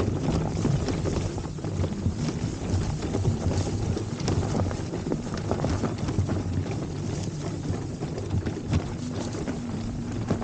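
Wind buffeting the microphone: a steady low rumble with crackling gusts.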